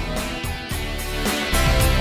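Background music with guitar, growing louder about one and a half seconds in.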